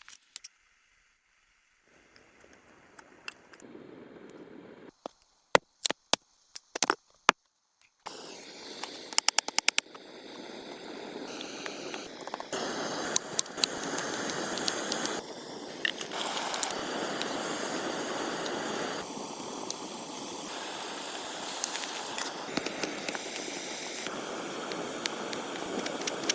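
A series of sharp wooden knocks and snaps, then from about eight seconds in a wood fire burning with a steady hiss and small crackles.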